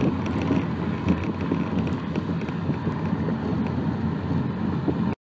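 Steady city road traffic, cars driving past, cutting off suddenly about five seconds in.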